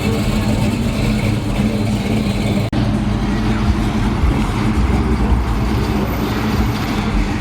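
Car engine running steadily with a deep, low hum. It cuts out for an instant a little under three seconds in, then carries on.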